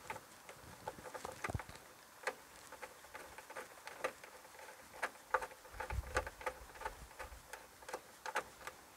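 Small irregular clicks and ticks of a nut being loosely threaded onto a sail-panel screw, with light handling of the panel, and a soft bump about six seconds in.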